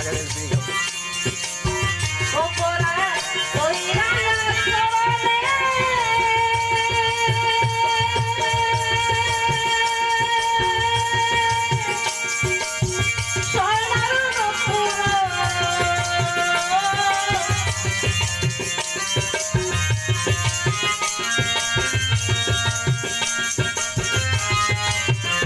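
Bengali Baul folk song played loud over a sound system: a steady drum beat throughout and a melodic line that rises, holds one long wavering note for several seconds, then turns down into another phrase.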